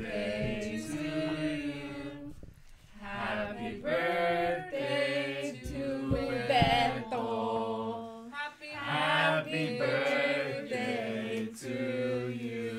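A group of people singing a birthday song together, in several drawn-out phrases with short breaks between them.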